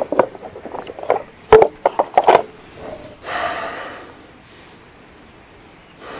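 Drone gear being packed into its box on a wooden table: a run of knocks and clatters, two of them sharp about a second and a half and two seconds in, then a short rustling rub, after which it goes quiet.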